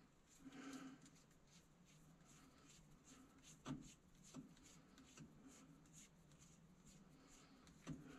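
Near silence, with a few faint metallic clicks as a small nut is worked off a fitting in a steel dashboard panel by hand.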